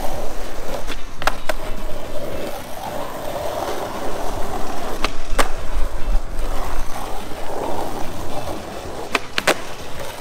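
Skateboard wheels rolling steadily over rough asphalt, with sharp clicks in pairs three times: about a second in, around five seconds, and near the end.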